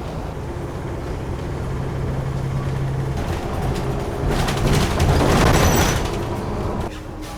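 City bus engine running with a steady low drone. About four seconds in, a loud rushing noise swells up for about two and a half seconds, then cuts off.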